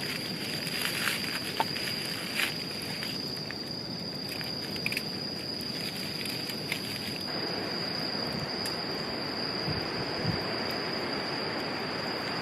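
A steady high-pitched insect trill over a soft even hiss, with a few light clicks in the first few seconds.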